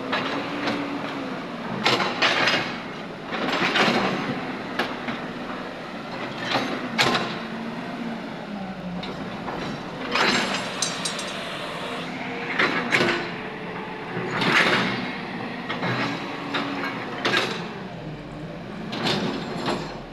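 Tracked JCB excavator's diesel engine running, its pitch rising and falling under hydraulic load, with repeated loud clanks and grinding of steel on broken concrete rubble, about every two seconds.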